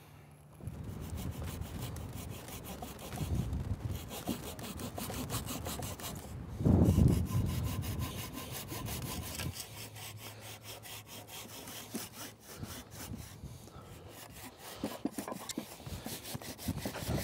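Hand saw crosscutting a block of split wood, a rapid, even rhythm of rasping strokes as the cut is worked in from the outside faces. A louder low bump about seven seconds in.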